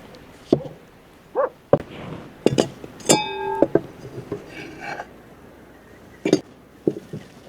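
Scattered knocks and clinks of cooking utensils and dishes being handled, with a short ringing tone about three seconds in.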